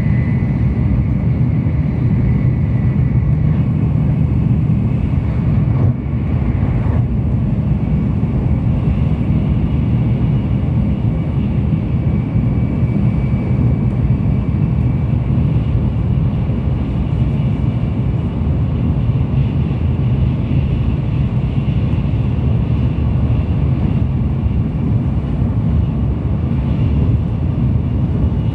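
Tokaido Shinkansen bullet train running at speed, heard inside the passenger cabin: a loud, steady low rumble with a faint high-pitched whine above it. The rumble dips briefly about six seconds in.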